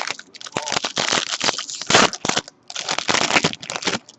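Foil trading-card pack wrappers crinkling and tearing as packs are ripped open and handled, in two long stretches with a brief pause in the middle, stopping just before the end.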